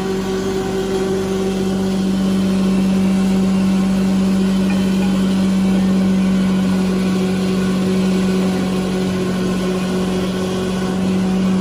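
Belt-driven wood grinding machine running steadily while it grinds wood chips into sawdust: a constant motor hum under a dense, rushing grinding noise.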